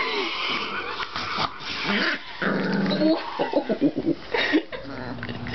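Four-week-old pit bull puppy growling while play-fighting with its mother, with a run of short, high-pitched calls about three seconds in.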